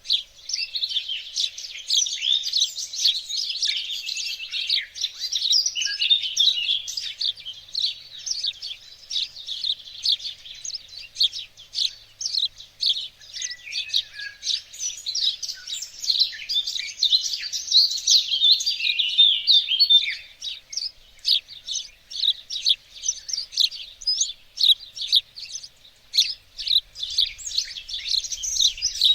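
Songbirds chirping and singing in a dense, continuous chorus of quick, high notes, several calls overlapping at once.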